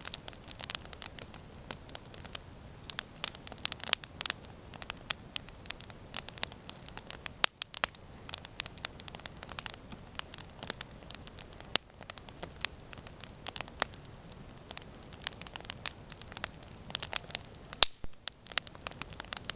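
Campfire burning: wood crackling with irregular sharp snaps over a steady low hiss, and two louder pops, one about seven seconds in and one near the end.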